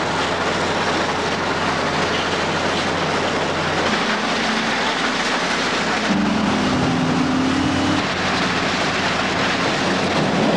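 Rock rattling steadily through a quarry sorting plant and along a conveyor, with heavy machinery engines running underneath. A stronger engine tone comes in about six seconds in and drops away about two seconds later.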